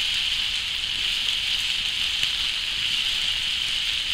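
Vegetables frying in a pan over a campfire, a steady sizzle with a few faint crackles.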